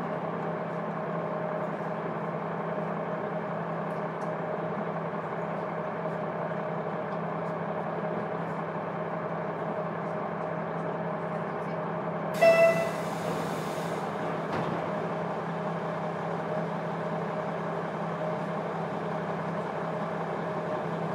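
KiHa 200 diesel railcar running, heard from the seat right above its engine with the windows closed: a steady engine drone with a constant hum. About twelve seconds in, a short horn blast of about a second and a half stands out loud over it.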